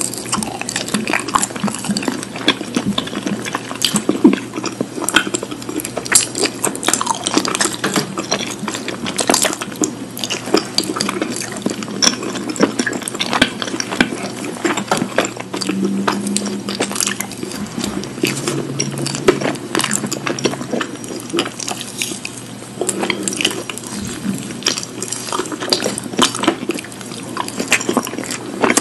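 Close-miked ASMR eating sounds: a dense, continuous run of small wet clicks and smacks from food being chewed and handled.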